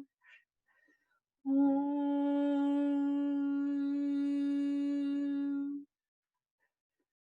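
A woman's voice humming one long, steady note as vocal toning for sound healing. It starts about a second and a half in, is held for about four seconds, then stops abruptly.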